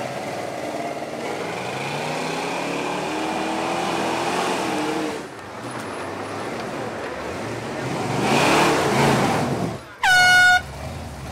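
Ford 460 big-block V8 in a lifted Ford pickup working hard under load, towing a 36,000-pound cement mixer up a dirt hill. The engine note climbs for about five seconds, drops away, then rises loud again. About ten seconds in comes a short, loud air-horn blast.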